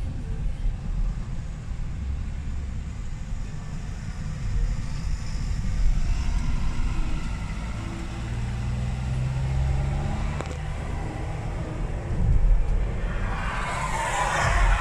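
Road and engine noise inside the cabin of a Toyota Vellfire 3.5 V6 minivan driving on a wet road: a steady low rumble with the engine's hum swelling in the middle, and a louder rush of noise near the end as it passes another vehicle.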